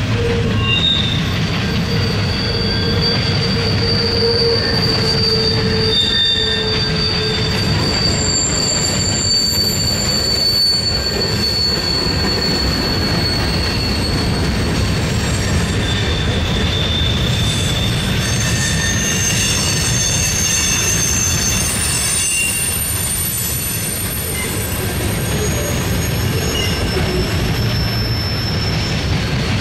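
Mixed freight train rolling past, its cars making a steady rumble on the rails. Several shrill wheel squeals come and go on top of it, the strongest a high squeal held for about ten seconds early on.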